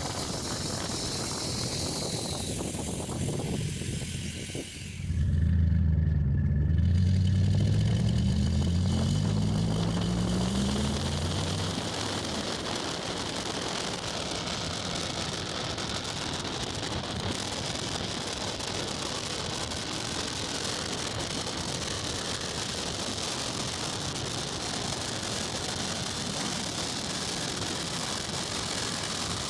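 A 4.6 L V8 engine, misfiring on cylinders seven and eight, pulls hard with its note rising for several seconds, then eases off into steady road and wind noise while cruising.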